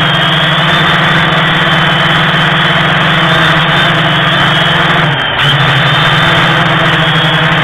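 DJI Phantom quadcopter's electric motors and propellers whirring loudly and steadily, close to the drone's own onboard camera. The pitch dips briefly about five seconds in, then picks up again.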